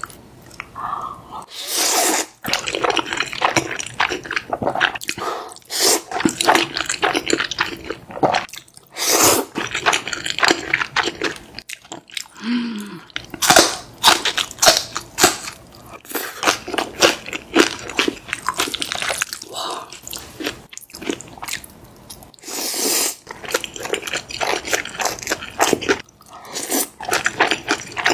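Close-miked eating of black bean noodles with kimchi: wet chewing and crunching bites in bursts, with short pauses between mouthfuls.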